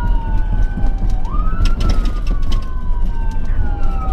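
Ambulance's electronic siren on wail, heard from inside the cab: the tone jumps up quickly and slides slowly down, repeating about every two seconds, over steady engine and road rumble. A brief clatter of clicks comes about halfway through.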